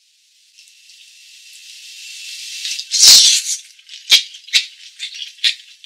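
Rattle-like percussion: a hiss that builds for a couple of seconds up to a sharp hit about three seconds in, followed by three short, sharp rattling strokes.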